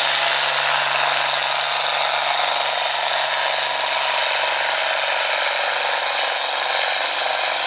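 International 966 tractor engine running flat out under heavy load as it pulls the weight-transfer sled, a loud, steady roar with a steady low drone underneath.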